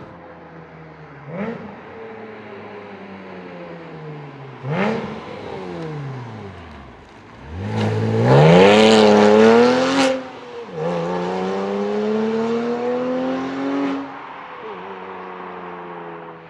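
Porsche Boxster S 987's 3.2-litre flat-six through a Capristo valved exhaust: the engine note falls as revs drop, broken by two short revs, then climbs hard in a loud pull that peaks past the middle. It drops suddenly as at a gear change, rises again in a second pull, and falls back to a steady lower note near the end.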